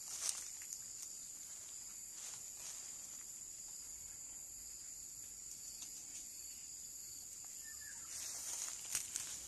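Steady high-pitched chirring of insects such as crickets, with a few soft rustles near the start and again near the end.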